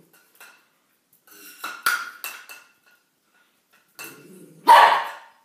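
Small dog barking: a few quick, short barks about two seconds in, then one louder bark near the end.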